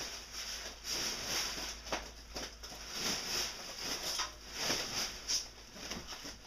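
Bubble wrap and packing paper rustling and crinkling as they are handled, in uneven swells with a few sharp crackles.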